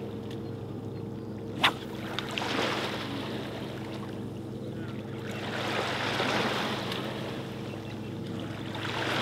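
Water washing along the shoreline in slow swells over a steady low hum, with a single sharp click about a second and a half in.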